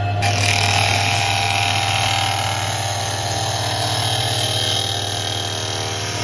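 A motor-driven cutter spinning up through a slot in a workbench, cutting into a wooden spoon blank held against it. A steady motor hum sits under a loud, even rasp of the cut, which starts a moment in and holds steady.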